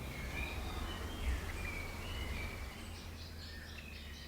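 Forest ambience: faint bird calls, a series of short whistled notes, over a steady low rumble of background noise.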